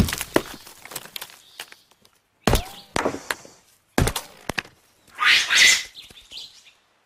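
A heavy stone hammer knocking against a palm nut on a stone anvil, as bearded capuchin monkeys crack nuts: a few sharp, irregularly spaced strikes, the middle two about half a second apart. A brief hissing burst comes about five seconds in.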